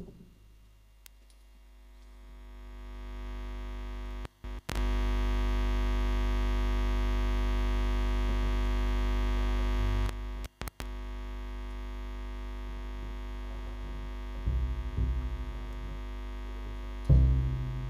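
Experimental electronic drone: a steady buzzing hum with many overtones that swells in over the first few seconds and then holds, cutting out abruptly twice for an instant. Near the end, low plucked double bass notes join in.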